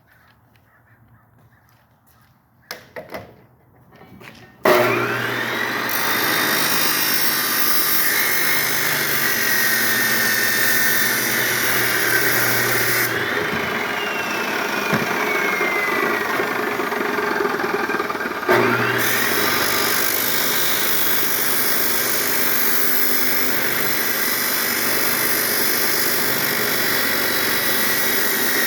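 Makita chop saw: a few light clicks, then the motor starts with a sudden loud burst and runs, cutting into a small plastic toy drill. About halfway through it winds down with a falling whine, then starts again with a rising whine and runs on.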